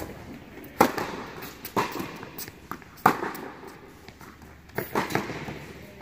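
Tennis ball struck by rackets and bouncing on an indoor hard court, a serve about a second in and then a rally of sharp pops, echoing in the large hall.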